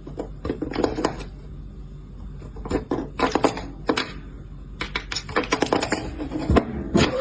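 Irregular clatter of sharp knocks and clicks in several bunched groups, with a low steady hum underneath.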